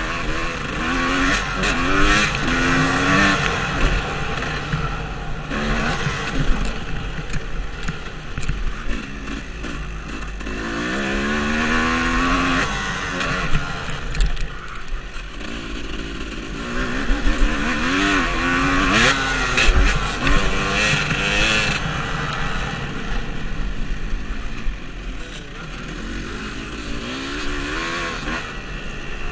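Dirt bike engine revving hard and easing off again and again as it is ridden around a motocross track, its pitch climbing and dropping through the gears.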